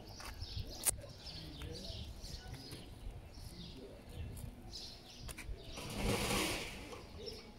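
Small birds chirping on and off in short high calls over a faint low rumble. A single sharp click comes about a second in, and a brief rushing noise swells and fades about six seconds in.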